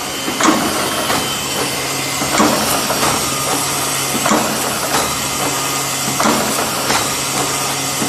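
Automatic wire mesh welding machine running: a strong stroke about every two seconds, four in all, with lighter clicks in between, over a steady hum and hiss.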